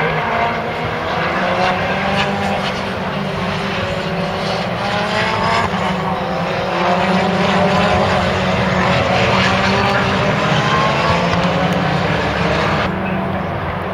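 Prototype race cars' engines accelerating past on track, their pitch rising in one sweep after another as they pull through the gears.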